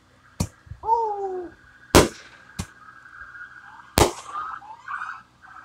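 Fireworks exploding: four sharp bangs spread over about four seconds, the second and the last the loudest. A siren wails steadily in the background.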